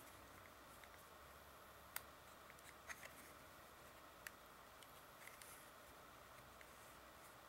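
Near silence with faint hiss, broken by a few small clicks and taps as hands press and handle a rugged plastic-and-rubber iPhone 4 case: a sharp one about two seconds in, a pair around three seconds and another just past four.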